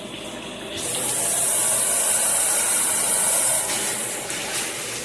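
Water running from a handheld shower head. About a second in, a loud, high hissing spray starts; it eases off near four seconds in.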